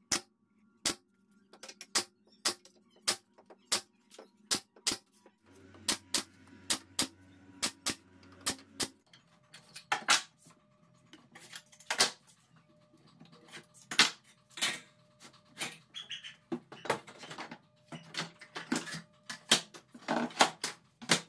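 Nail gun firing into plywood, a sharp shot about twice a second for the first nine seconds or so. Then louder, irregular knocks and clatter as wooden pieces and bar clamps are set down on a plywood workbench.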